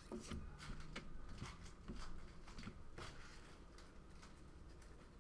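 Faint rustling and scattered light clicks of trading cards being handled and flipped through.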